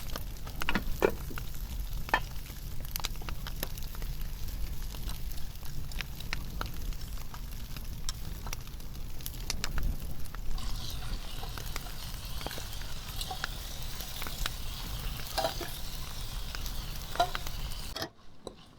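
Food frying in a pan over a wood campfire: scattered clicks and crackles at first, then from about halfway a steady sizzle, which cuts off abruptly near the end.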